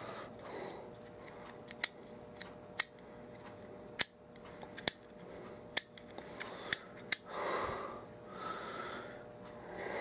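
Sharp plastic clicks, about seven at irregular spacing, from a car turn signal switch assembly being handled and worked with the fingers; the switch's stalk has broken off.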